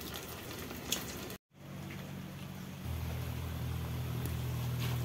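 Potatoes deep-frying in hot oil in an aluminium kadai, a faint sizzling hiss with light ticks. About a second and a half in it breaks off briefly. A steady low mechanical hum then comes in, louder from about three seconds in, over the faint sizzle.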